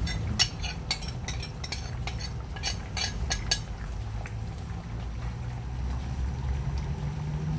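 Liquid poured from a bowl into a large pot of simmering curry, then a metal ladle stirring it. A quick run of sharp splashes and clinks fills the first three and a half seconds, over a steady low rumble.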